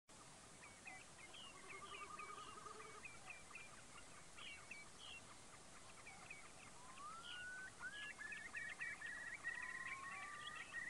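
Dawn chorus of moorland waders: many short, repeated calls overlapping, with a trill in the first few seconds. From about seven seconds in, rising whistled calls run into a fast trill.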